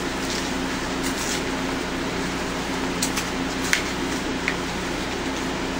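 Steady mechanical hum, with a few light clicks from small parts being handled around the middle.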